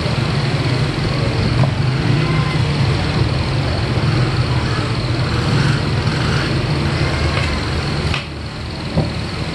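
A motor or engine running steadily with a low hum, easing off briefly near the end, with one light knock just after.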